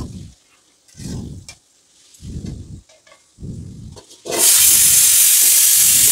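Spatula stirring pumpkin pieces in wet masala in a kadhai, in low strokes about once a second. About four seconds in, a loud, steady hiss starts as the freshly added water sizzles and steams in the hot pan under a steel plate lid.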